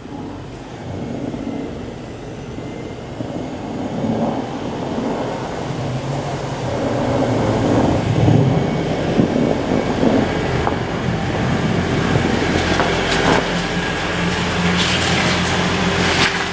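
Toyota Prius driving through deep snow past close by: tyres crunching and ploughing through the snow, getting louder as it approaches and loudest about 8 seconds in as it passes, with a low steady hum continuing after.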